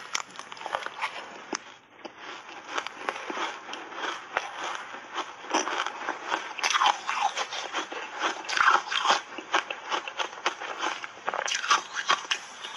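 Close-miked biting and chewing of soft refrozen shaved ice covered in matcha powder: a dense run of crackly crunches, loudest in the middle.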